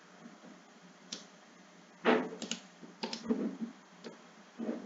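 Computer mouse clicks: a scattering of short, sharp clicks at irregular intervals, the loudest about two seconds in.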